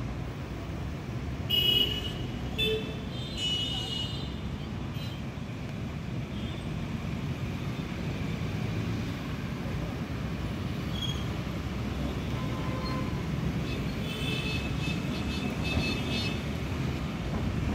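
Steady road traffic rumble with vehicle horns honking: a few short blasts in the first few seconds and a rapid run of beeps near the end.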